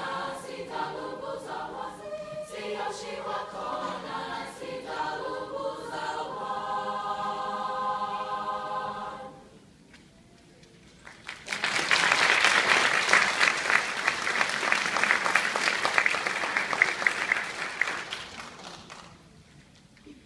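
Choir singing without accompaniment, ending on a long held chord; after a short silence the audience applauds for about seven seconds, then the clapping dies away.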